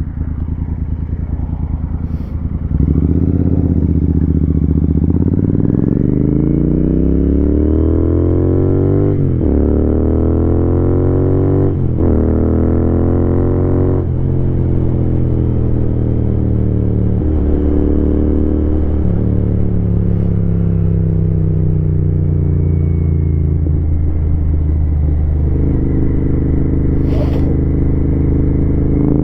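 Royal Enfield Continental GT 650's parallel-twin engine heard from the riding bike. It picks up about three seconds in and climbs in pitch through three quick upshifts, then holds a steady cruise that eases off and levels out near the end.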